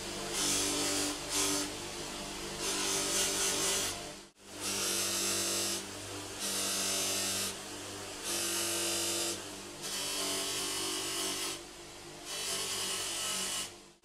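Bench grinder motor running with a steady hum while small steel screwdriver bits are pressed against its spinning wheel, giving a hissing scrape each time a bit is on the wheel, about a second at a time and repeated several times.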